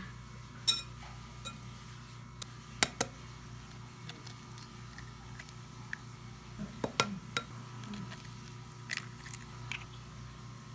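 Irregular light clicks and clinks of dishes and utensils being handled during food preparation, over a steady low hum.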